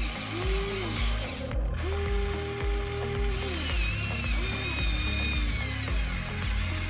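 Background music with a steady bass line, over the electric whine of an RC excavator's motors, which rises in pitch, holds and falls away several times as the machine works.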